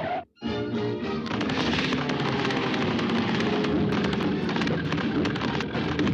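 Cartoon orchestral score mixed with a rapid, dense clatter of percussive hits. The sound drops out briefly just after the start.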